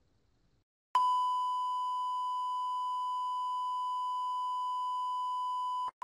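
Television bars-and-tone test signal: a steady 1 kHz beep that starts abruptly about a second in, after near silence, and holds at one pitch. It breaks off for an instant near the end and then comes back.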